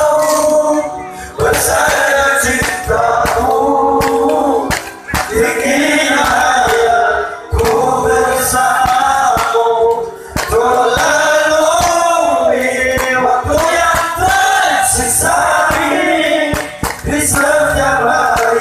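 Live sholawat: a man sings an Islamic devotional song through a loud PA, with other voices joining in and a steady drum beat underneath, in phrases of a few seconds each.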